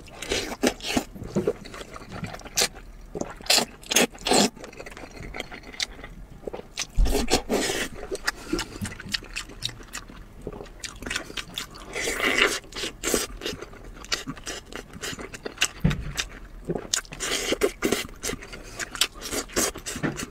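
Close-miked eating: slurping wide flat noodles, then wet chewing and biting meat off a braised lamb leg, with many short sharp mouth clicks.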